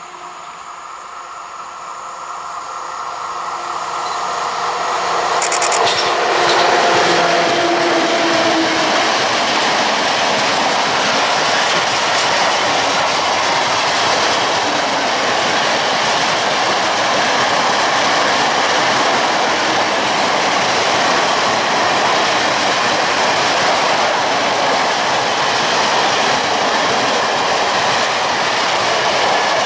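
Freight train passing close by: the locomotive comes closer with a steady hum that drops in pitch as it goes past, about six seconds in, then a long run of wagons rolls by with wheels rattling over the rails.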